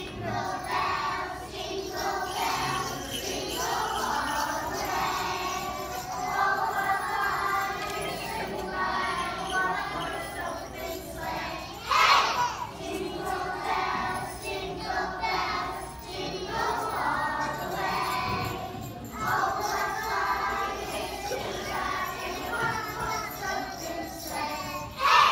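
A choir of small children singing together with jingle bells ringing along. The voices jump to a loud burst about halfway through and again at the very end.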